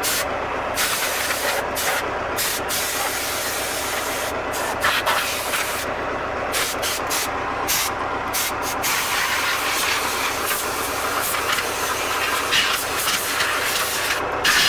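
Compressed-air blow gun blasting air through a dust-clogged radiator core: a loud hiss in bursts with short breaks for the first half, then one long unbroken blast that stops just before the end as the air supply runs out.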